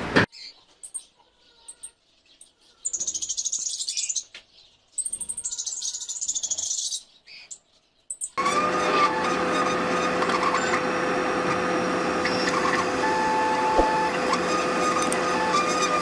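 Two bursts of rapid high chirping from small pet parrots (lovebirds and cockatiels), about three and five seconds in. A little past halfway, a laser cutter starts up: a steady machine noise with a hum, and a whine that rises and falls as the cutting head moves.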